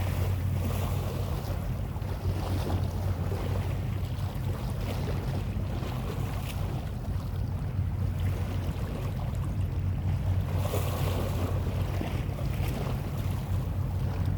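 A boat engine running steadily with a low hum, with wind buffeting the microphone and water noise.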